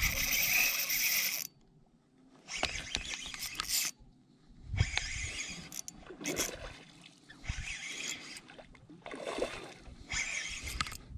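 Shimano Vanford spinning reel working against a hooked redfish: reel and line noise comes in about six bursts of a second or two each, separated by short near-silent gaps.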